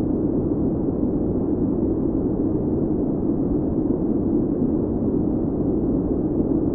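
A steady, deep rumbling noise with no separate bangs or tones.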